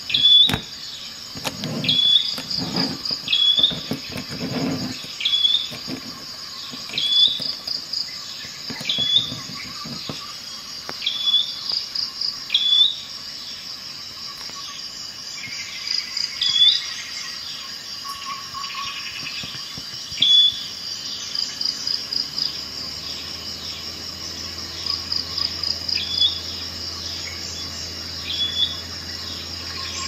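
Insects trilling steadily, with a bird giving a short chirp over and over about once a second. A few low knocks near the start as metal multi-tools are moved on the cloth, and a low hum comes in about two-thirds of the way through.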